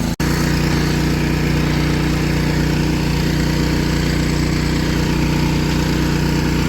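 An engine running steadily at an even speed, cut by a split-second gap just after the start.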